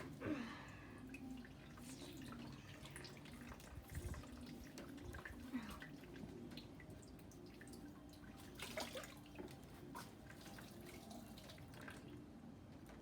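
Washing machine draining its rinse water: faint trickling and dripping over a low steady hum, with a few small splashes, the clearest about 4 and 9 seconds in.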